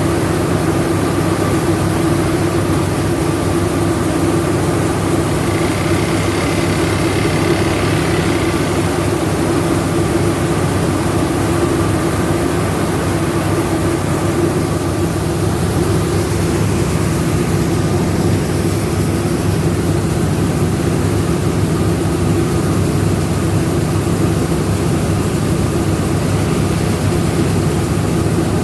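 Rice milling machine running steadily: a loud, continuous mechanical drone with a steady hum, unchanged throughout.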